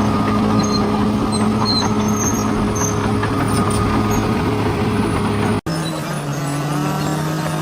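Diesel engine of a heavy earthmoving machine running steadily. A little over five and a half seconds in, the sound breaks off for an instant and comes back at a different, lower engine note.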